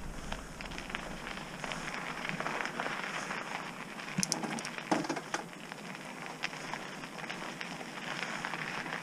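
Trek Roscoe 6 mountain bike's tyres crunching and crackling over a dirt and gravel trail on a slow uphill climb, with scattered small clicks and a couple of sharper knocks about four and five seconds in.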